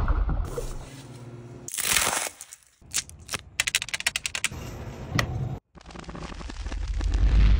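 Small hard candies clicking down onto a metal freeze-dryer tray in a quick run of sharp clicks, after a brief swish. A single knock follows, and a low rumble builds near the end.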